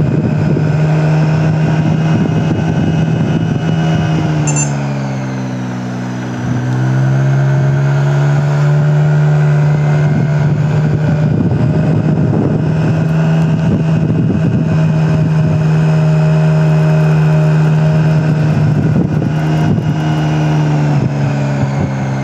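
Road vehicle's engine running steadily on the move, easing off with falling pitch about four seconds in, then picking up again and holding steady.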